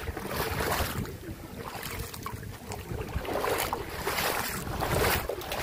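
Wind buffeting the phone's microphone in gusts, over the rushing water of a shallow river.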